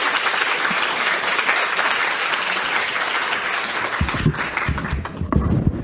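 Audience applauding in a lecture hall, thinning out near the end. From about four seconds in, low thumps and knocks are heard as the lectern microphone is handled.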